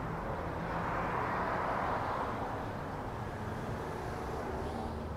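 Steady outdoor traffic noise with a low engine hum; a passing vehicle swells it about a second in, and it then fades back.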